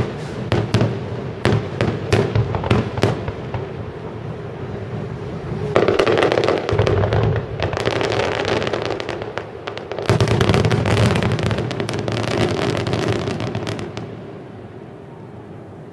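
Aerial fireworks: a run of sharp separate bangs, then two long spells of dense rapid crackling from bursting shells about six and ten seconds in, dying away near the end.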